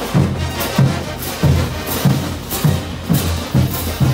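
Bolivian brass band playing while marching. A steady bass-drum beat comes a little under twice a second, with clashing crash cymbals and snare drums over trumpets, trombones and sousaphones.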